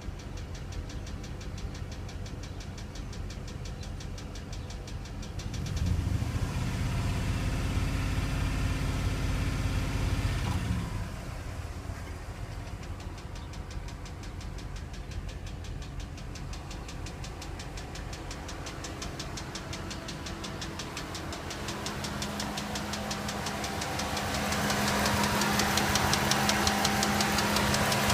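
Dodge Ram 4.7-litre V8 running with a rapid, steady ticking. It is revved up about six seconds in and held for several seconds, drops back to idle, then is revved again near the end. The engine is misfiring on cylinder 7, which has low compression; the owner believes a valve is not seating or a rod bearing has spun.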